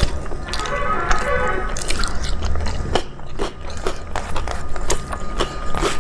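A person chewing food close to the microphone: wet mouth clicks and smacks, with a few crunchy bites.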